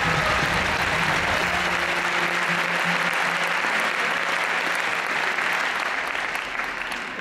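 A large audience applauding, the clapping easing off near the end.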